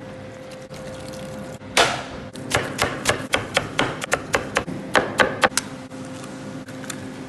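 Knife chopping fresh parsley on a plastic cutting board: one louder knock, then a quick run of about fourteen sharp chops, some four to five a second, over a steady low hum.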